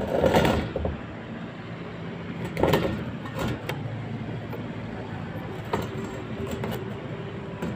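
Hands handling loose wire and a cable tie close to the microphone: a few short rustles and clicks, the loudest in the first second and another near the three-second mark, over a steady low hum.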